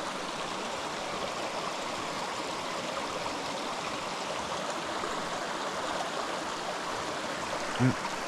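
Creek water running steadily over rocks, an even rushing sound.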